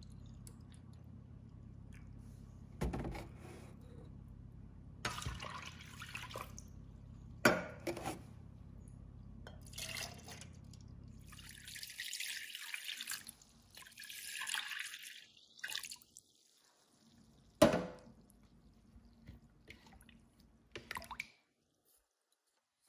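Liquid being poured from a jug into metal cans and a stainless steel mixing bowl, splashing and trickling, with a few sharp knocks along the way. The loudest knock comes in the second half, and the sound stops abruptly about a second before the end.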